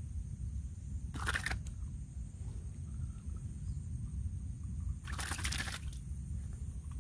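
Water splashing twice, in two short bursts about four seconds apart, over a low steady rumble.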